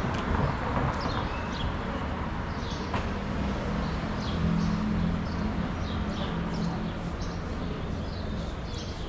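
Small birds chirping again and again over the steady noise of a city street, with a low engine drone setting in about three seconds in.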